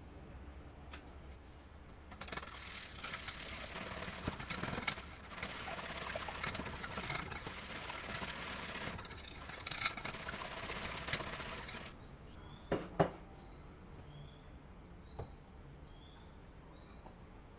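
Egg-soaked bread frying in butter in a pan: a steady sizzle with crackling. It starts suddenly about two seconds in and cuts off about ten seconds later, followed by a couple of light knocks.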